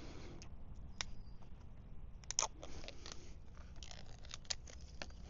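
Packaging of a camera box being opened by hand: a string of small clicks, scrapes and rustles of cardboard and plastic, the sharpest click about two and a half seconds in.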